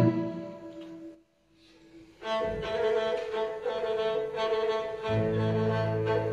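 Bulgarian gadulka with a chamber string orchestra. A phrase fades away, there is a pause of about a second, then bowed strings come back in with a held melody, and low strings enter underneath about five seconds in.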